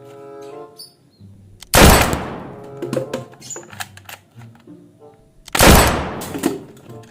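Two loud gunshot sounds about four seconds apart, each dying away over about a second, over background music.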